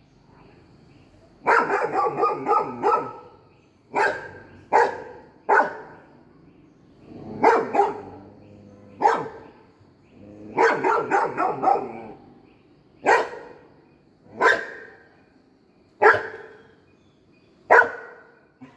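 Golden retriever barking to guard the house: loud single barks at irregular gaps, broken by two quick runs of barks.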